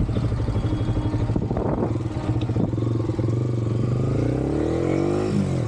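Motorcycle engine running under way, picked up by a helmet-mounted camera's built-in mic. The revs climb steadily in the second half, drop sharply near the end with a gear change, then start to rise again.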